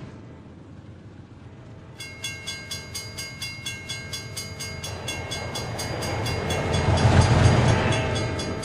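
A railroad bell starts ringing about two seconds in, at about three strokes a second. A train's rumble builds under it and is loudest near the end as the train passes.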